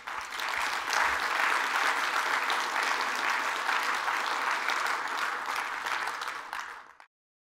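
Audience applauding, a steady clapping that lasts about seven seconds and then cuts off abruptly.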